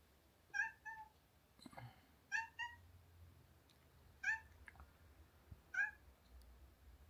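Domestic cat meowing in six short calls, the first four in quick pairs and then two single calls, a cat at the front door wanting to get out.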